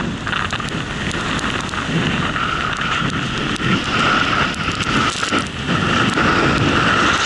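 Steady rush of wind on the camera's microphone and the hiss of riding through deep powder snow, with scattered ticks as snow sprays against the camera.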